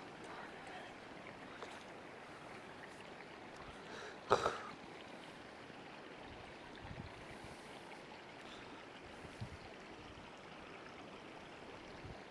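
Creek water running steadily over a shallow bed, with one short, sharp knock or splash about four seconds in.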